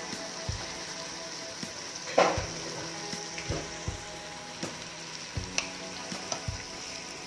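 Oil with ground coriander and spices sizzling steadily in an aluminium pot, stirred with a wooden spoon that knocks and scrapes against the pot a dozen or so times, the loudest knock about two seconds in.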